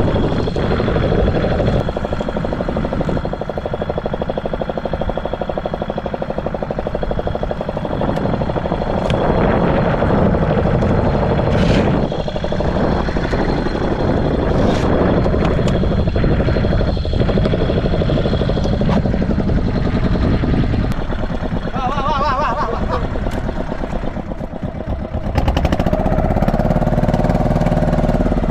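Fishing boat's engine running steadily. It grows louder near the end, with its pitch shifting up and down.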